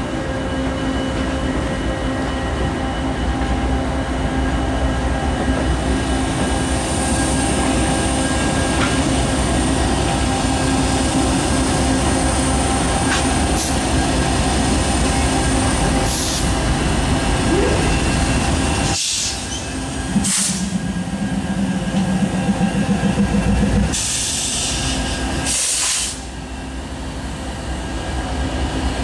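Norfolk Southern diesel locomotives running steadily as they pass, hauling a train of autorack cars. The sound breaks off abruptly a couple of times about two-thirds of the way through.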